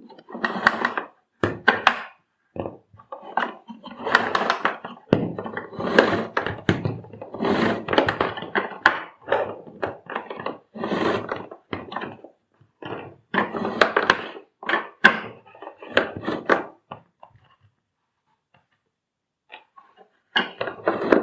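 Vacuum cleaner's plastic parts being handled during repair work: an irregular run of clicks, thunks and rubbing, which goes quiet for a few seconds near the end.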